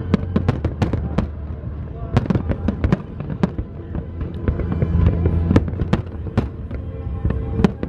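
Aerial fireworks shells bursting: many sharp bangs and crackles in quick, irregular succession over a steady low hum.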